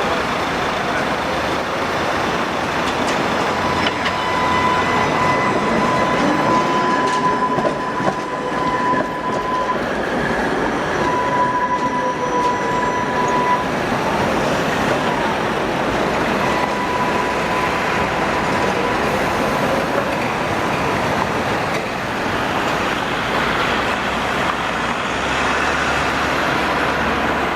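ČKD Tatra T3 tram running on street track, with rolling wheel-and-rail noise throughout. A steady high whine comes and goes three times.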